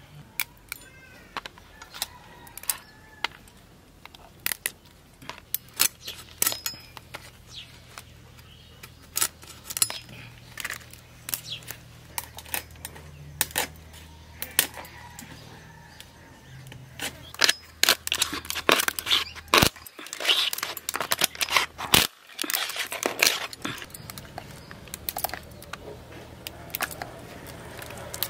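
River crab shells and claws cracking and snapping as they are broken apart by hand: a run of sharp, irregular clicks and cracks that comes thickest in the second half.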